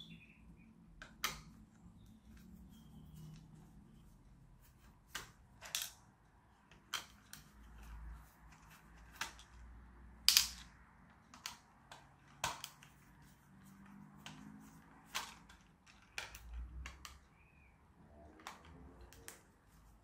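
Sharp plastic clicks and taps at irregular intervals, about a dozen, from unscrewing and prying at the plastic body parts of a Britains 1:16 Case IH radio-controlled toy tractor; the loudest snap comes about ten seconds in.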